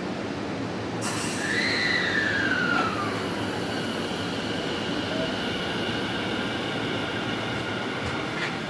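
Tobu Tojo Line electric commuter train on the move: a sudden rush of rail noise about a second in, a high whine that falls in pitch over the next two seconds, then steady high whining and squealing tones.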